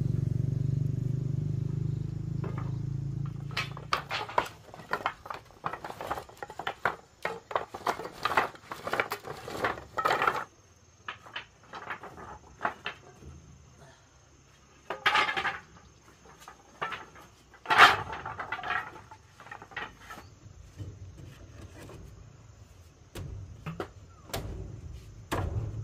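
Irregular clattering and knocking of hard objects being handled, some strikes sharp and ringing. A low steady hum fades out over the first four seconds.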